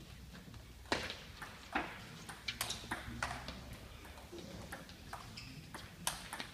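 Table tennis ball struck back and forth in a rally: a string of sharp clicks as the ball hits the bats and bounces on the table, starting about a second in and running at roughly one to two hits a second.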